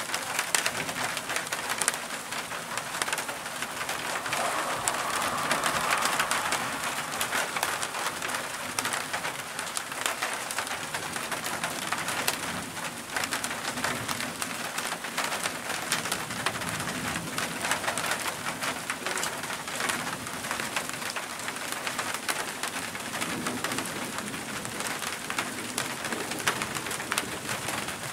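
Steady thunderstorm rain, a dense patter of drops.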